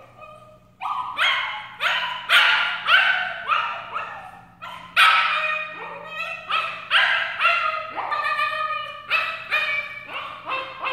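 A three-month-old puppy yelping and whining in a steady string of short cries, each falling in pitch, about two a second, starting about a second in. She is protesting being shut in an exercise pen.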